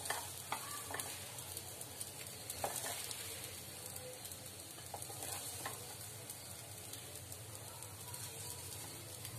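A spatula scooping fried rice out of a pan into a serving bowl: faint scraping and rustling of the rice with a few soft taps.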